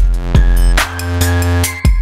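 Electronic background music with a heavy, sustained bass line and a steady, punchy beat.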